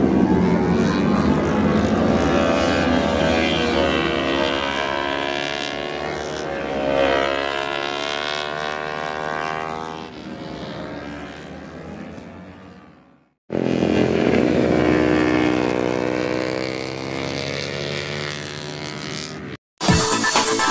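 Racing motorcycle engines at high revs as the bikes pass along the track, their pitch sweeping and falling as they go by, then fading away. After a sudden cut, a second stretch of engine noise follows, and about a second before the end electronic music begins.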